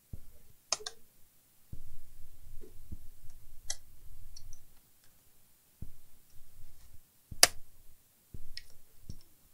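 Hands and a small tool prying and pressing at the edge of an HP ZBook laptop's keyboard: a few sharp plastic clicks, the loudest about seven seconds in, between dull knocks and rubbing of hands on the laptop.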